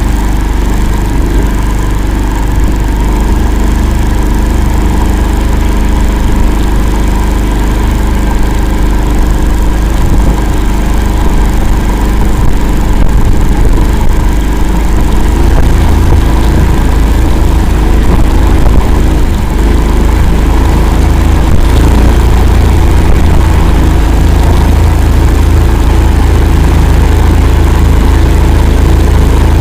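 Engine of an Akula all-terrain vehicle running steadily as the machine drives across swampy ground, getting a little louder about halfway through.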